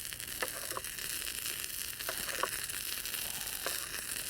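Homemade candle-gel and cotton-ball fire starter burning while floating on water, sizzling steadily with scattered small pops and crackles as it burns off the water.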